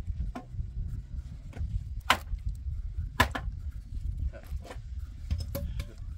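A kitchen knife paring strips of skin off a hand-held courgette: about half a dozen short, crisp slicing strokes, the sharpest about two and three seconds in, over a steady low rumble.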